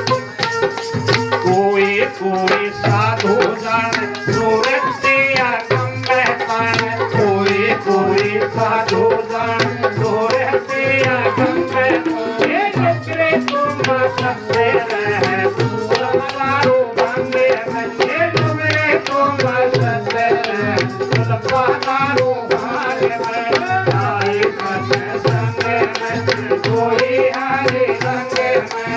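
Instrumental interlude of a devotional bhajan: a wavering melody line over hand-drum beats and a shaken, rattling percussion keeping a steady rhythm.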